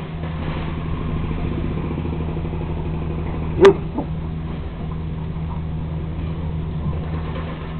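A steady low hum, like a motor running, with a single short, sharp sound a little over three and a half seconds in.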